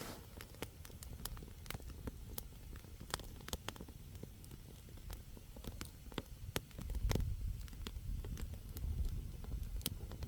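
Wood campfire burning, logs crackling and popping in sharp, irregular snaps. A low rumble joins about two-thirds of the way through.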